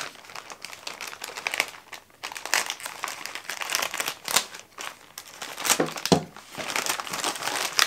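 White plastic mailer bag crinkling and rustling in irregular crackles as it is cut into with a pocket knife and torn open.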